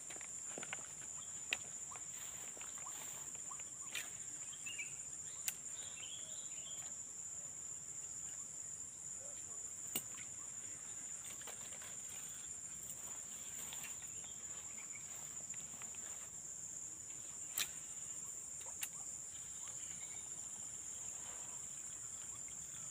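Steady, high-pitched chorus of insects in swampy forest edge, with a fine fast pulse to it. A few sharp clicks stand out above it at irregular intervals.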